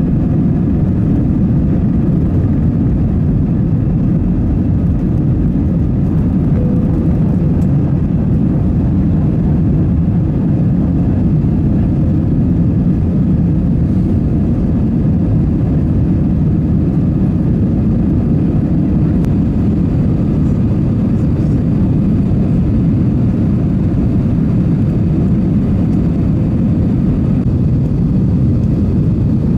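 Jet airliner's engines at takeoff power, heard inside the cabin over the wing: a loud, steady noise of engines and rushing air through liftoff and the initial climb.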